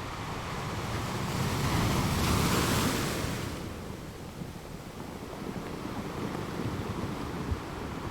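Ocean surf: a wave swells and breaks, loudest two to three seconds in, then drains away into a softer, steady wash.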